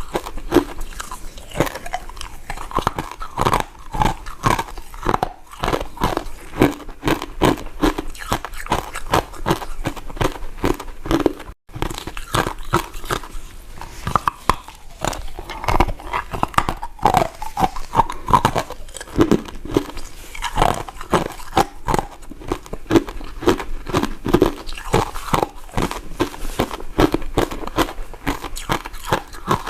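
Close-miked eating of soft, powder-coated mint sweets: continuous biting and chewing with wet, sticky mouth clicks and smacks. The sound breaks off for an instant about a third of the way through.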